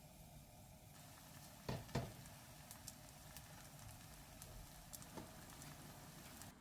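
Near silence: faint room tone with a few soft clicks or knocks, two close together about two seconds in and one more near the end.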